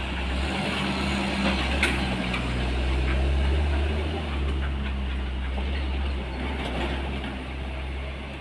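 Isuzu Giga wingbox truck's diesel engine pulling through a tight hairpin bend, a deep steady rumble that eases slightly near the end. One sharp click about two seconds in.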